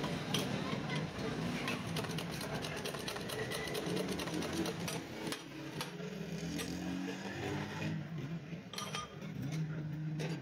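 Light metallic clicking and ticking from a motorcycle spoke wheel being trued on a stand, as the wheel turns and the spokes are tightened, with a low hum underneath.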